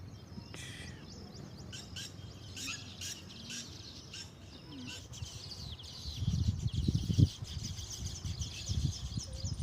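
Small birds chirping and twittering with many short, high calls, thickening into dense, continuous chatter about halfway through. Loud low rumbles join in the second half.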